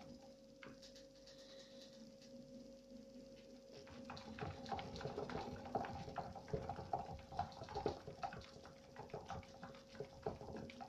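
Rat running in a 33 cm Trixie plastic running wheel: light, sparse ticking at first, then from about four seconds in a fast, uneven patter and clatter of its feet and the spinning plastic wheel.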